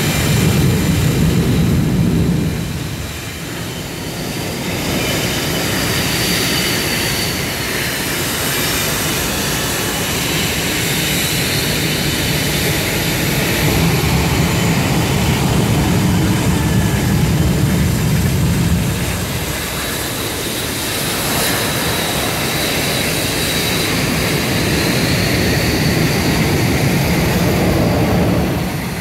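Blue Angels F/A-18 Hornet jets taxiing past one after another, their twin turbofan engines rumbling with a high whine. The sound swells as each jet comes by, and the whine bends up and down in pitch as it passes.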